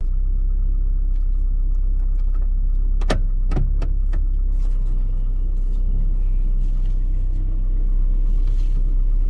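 Pickup truck's engine running, heard from inside the cab as the truck idles and then drives off: a steady low rumble, with two sharp clicks about three seconds in.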